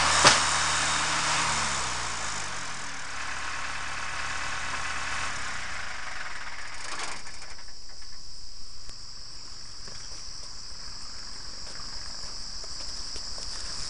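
A sharp click, then a farm tractor's engine winding down to a stop, its pitch falling over the first few seconds. After that, insects chirr steadily at a high pitch.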